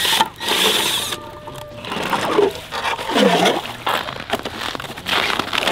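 Plastic snow shovel scraping across the ice and scooping loose ice shavings from around a freshly drilled ice-fishing hole, in several separate strokes.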